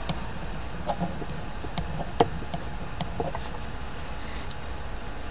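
Pen writing on paper: a run of small ticks and taps as the pen strokes and lifts, the sharpest about two seconds in, stopping after about three and a half seconds, over a steady low hum and hiss.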